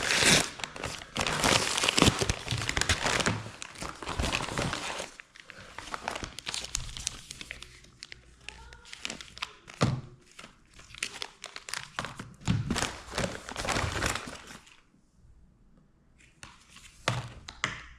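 Packaging being torn open and crinkled by hand, dense and loud for the first five seconds, then sparser rustling with scattered clicks and a few knocks near the end.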